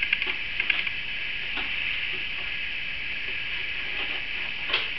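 Safety scissors snipping through a paper plate: a few scattered snips, the sharpest near the end, over a steady hiss.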